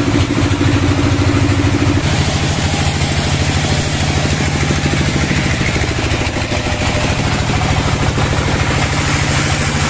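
A sawmill engine running steadily at idle with a rapid, even chugging. Its tone shifts slightly about two seconds in.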